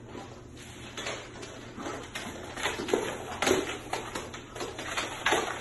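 A dog's claws and a piglet's hooves clattering and tapping irregularly on a hardwood floor as the two play, the taps coming thicker and louder past the middle.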